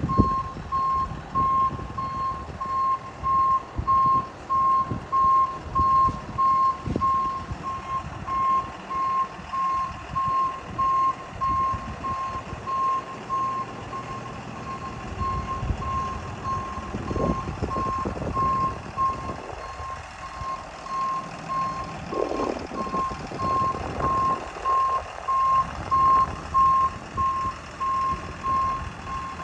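Reverse alarm of a 2012 Freightliner P1000 box truck beeping steadily, a single high tone a little more than once a second, as the truck backs up. Its Cummins turbo diesel runs underneath, the engine note rising briefly a couple of times in the second half.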